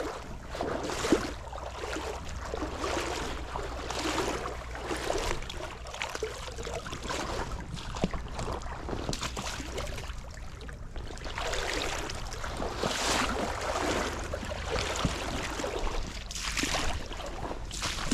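Wind gusting over the microphone, a steady low rumble with rushing noise that swells and fades every few seconds, over moving stream water.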